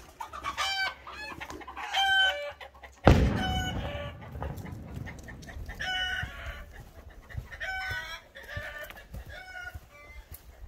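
Chickens and a rooster calling repeatedly, a string of short pitched calls. A sudden loud thump about three seconds in is the loudest sound.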